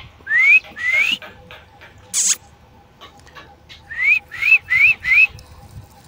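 Alexandrine parakeets giving short rising whistled calls: two near the start, then four in quick succession about four seconds in. A single brief harsh burst sounds between them, about two seconds in.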